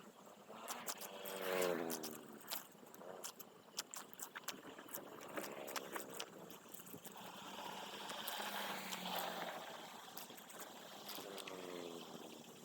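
Water pouring and running through a cleared drain, with many sharp clicks and crackles and a few short pitched sounds that fall in pitch.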